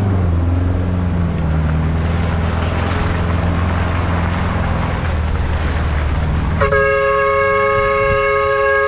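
Off-road 4x4's engine running with a steady low drone. About six and a half seconds in, a vehicle horn sounds one long, steady honk that is still going at the end.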